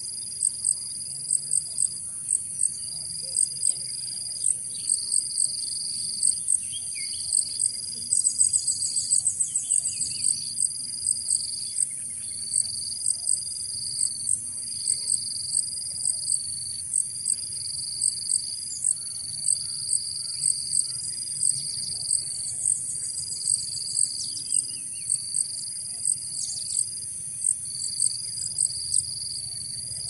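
Insect chorus, crickets or cicadas: a steady high-pitched trill with a sharp chirp repeating about twice a second, and a second insect buzzing on and off about once a second. Faint bird chirps sound underneath.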